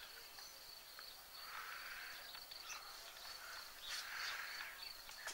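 Faint outdoor ambience: a steady high-pitched insect whine, with two soft swells of hiss.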